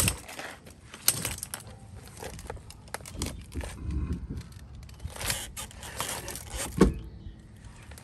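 Scattered clicks, scrapes and knocks of hands working at a trailer wheel and tyre, with one louder thump nearly seven seconds in.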